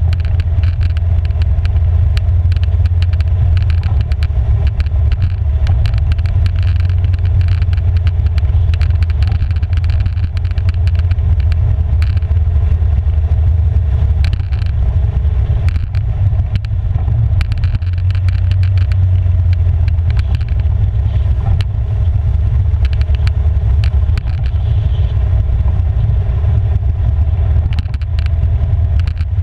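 Polaris 570 ATV's single-cylinder engine running steadily under way, a heavy low rumble, with tyres on gravel and frequent small clicks and rattles throughout.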